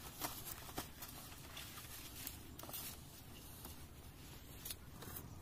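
Faint rustling and soft crackles of a flat plastic lay-flat irrigation pipe being unrolled and handled, with soft footsteps on sand, over a steady low rumble.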